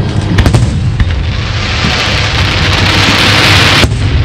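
Fireworks: a few sharp bangs in the first second, then a dense hissing crackle, like rain, for about two and a half seconds that cuts off suddenly, over a steady low rumble.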